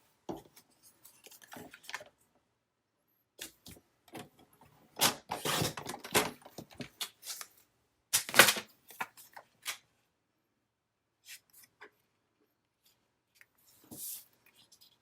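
Scissors trimming the edges of a piece of card, with paper handling: a few clusters of snips and rustles separated by quiet stretches, the loudest a little past the middle.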